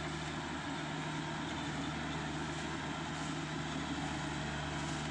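Rice combine harvester's engine running steadily as it works the field, an even low hum that does not change.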